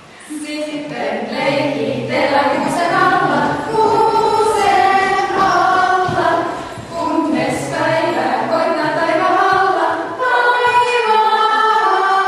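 A small group of women singing a song together a cappella, in an echoing hall.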